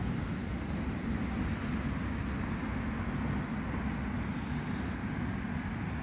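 Steady low rumbling background noise outdoors, with no distinct events.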